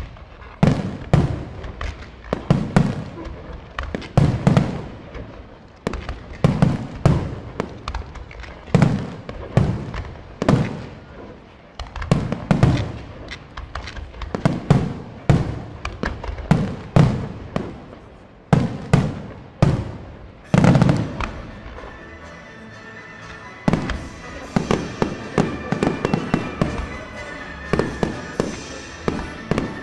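Fireworks display: aerial shells bursting in a steady run of sharp booms, one or two a second, each with a short echo. After about twenty seconds the booms give way to a denser, continuous crackling of many smaller bursts.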